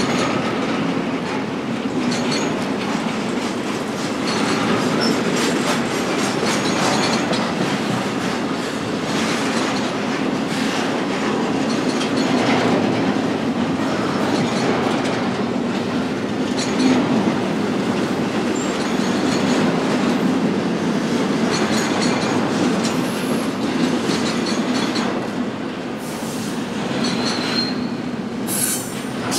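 BNSF intermodal freight train cars rolling past: a steady rumble of steel wheels on rail with repeated clicks, and a short high wheel squeal near the end.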